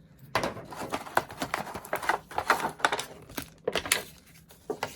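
Pokémon trading cards and their packaging being handled close to the microphone: a dense run of crinkles, rustles and small clicks, with a short pause a little past halfway.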